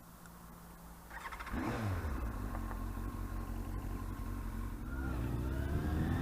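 Yamaha R1 inline-four engine, quiet at first, then suddenly louder about a second and a half in and climbing steadily in revs near the end as the bike accelerates.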